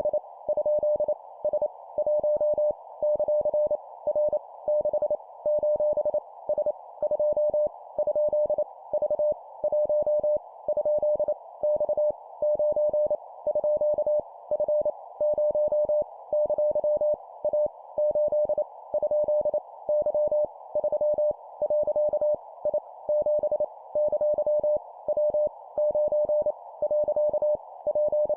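Morse code (CW) at 25 words per minute: a single steady tone keyed on and off in dots and dashes, spelling random letters, numbers and punctuation, over a faint steady hiss like a receiver's.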